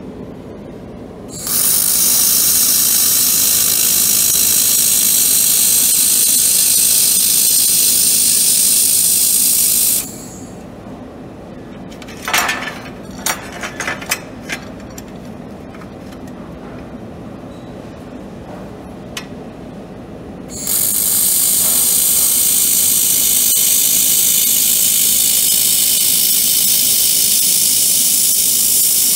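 Handheld laser welding torch hissing steadily while welding 2 mm square steel tube, in two long runs of about eight and nine seconds. Between the runs, a few short metal clanks and rattles.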